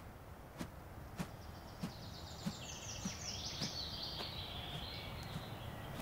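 A bird twittering in a high, quick trill from about two seconds in to near the end, over a steady ticking at about one and a half ticks a second and a low background rumble.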